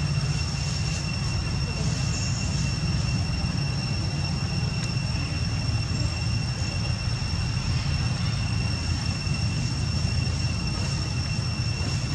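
A steady low rumble with a thin, steady high-pitched tone held above it throughout.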